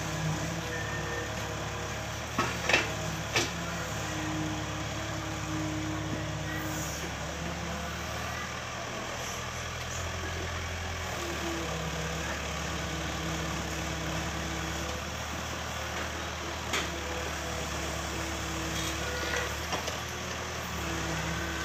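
Sumitomo hydraulic excavator's diesel engine running steadily, its note changing as the boom swings and the bucket digs, with a few sharp knocks, two near the start and one later.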